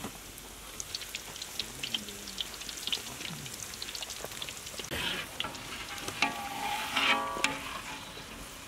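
Battered onion rings deep-frying in a large wok (kadai) of hot oil: steady sizzling with frequent small crackling pops. Between about six and seven and a half seconds in, a louder metallic scrape with a ringing squeal as a metal skimmer works against the pan.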